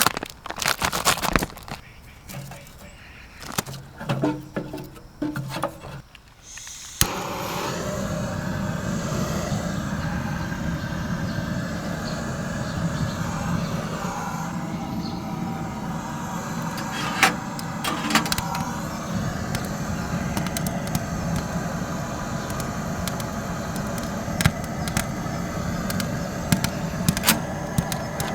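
Small camping wood stove with a wood fire burning in its firebox: sharp crackles and knocks at first, then about seven seconds in a steady roar of the fire drawing hard starts, with scattered crackles of burning wood on top.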